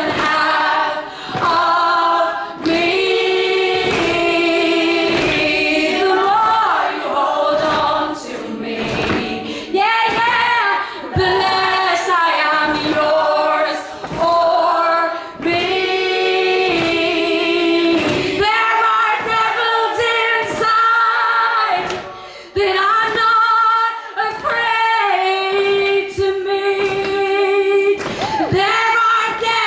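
Wordless a cappella singing: several voices layered in harmony, holding and gliding between notes over a low sustained note.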